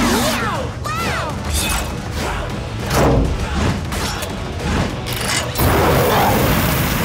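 Cartoon vehicle transformation sound effects over upbeat music: whooshes, mechanical clanks and booms as parts snap into place. About five and a half seconds in, a jet booster fires with a loud sustained rushing hiss.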